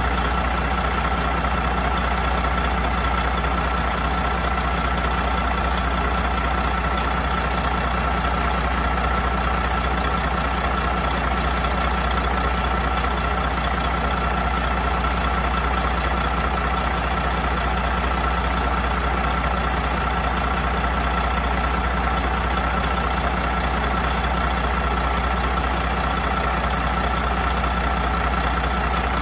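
2005 Detroit Diesel Series 60 12.7-litre inline-six turbo diesel idling steadily, with a steady high whine over the engine note.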